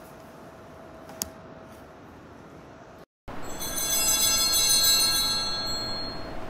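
A bell rings about halfway through, several clear high tones sounding together that swell and then fade out over about three seconds. Before it there is a faint steady hum with a single click, and the sound drops out briefly just before the bell.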